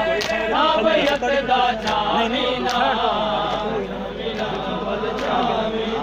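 A crowd of men chanting a Punjabi noha in unison, with rhythmic chest-beating (matam) slaps landing about once every second.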